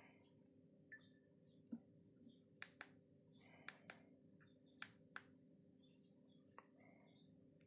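Near silence: faint room tone with a low steady hum and a scattered handful of faint small clicks, such as handling of a phone.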